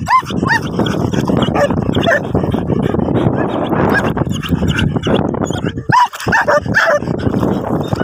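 Dogs giving excited high yips and whines, in short arching cries near the start and again around six seconds in, over a steady rush of noise.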